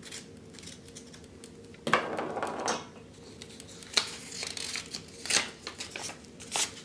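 Folded paper slip being opened and unfolded by hand: a loud rustle about two seconds in, then several sharp paper crackles.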